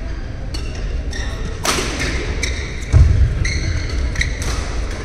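Badminton rally: sharp shuttlecock strikes off the rackets and short squeaks of shoes on the court, with a heavy low thump about three seconds in, the loudest moment.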